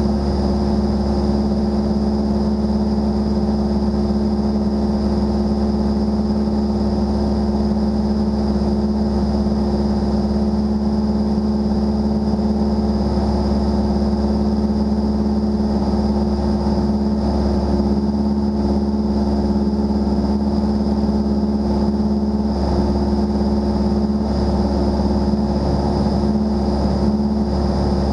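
Single-engine propeller plane's engine and propeller running steadily in flight, a constant drone with no change in power.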